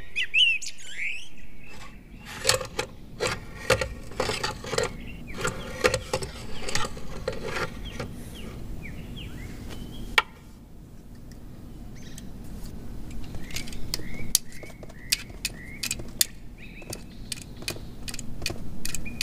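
Small birds chirping in short calls, with many irregular sharp clicks and light taps throughout; one louder click comes about ten seconds in.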